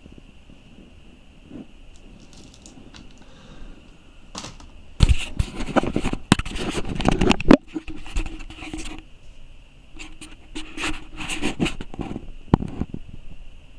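Handling noise: cloth and hands rubbing and scraping against a body-worn camera's microphone as it is moved and covered, loudest in two irregular stretches in the middle, with a few sharp clicks. A faint steady high-pitched hum sits underneath.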